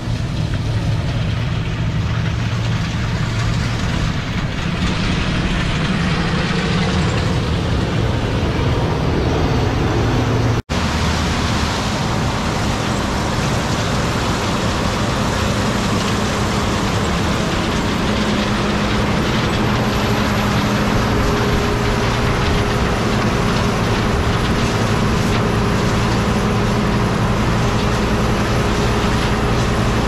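John Deere 70 Series STS combine running steadily under harvest load, its engine and threshing machinery giving a continuous low hum. A split-second dropout about ten seconds in, then the same kind of combine running on.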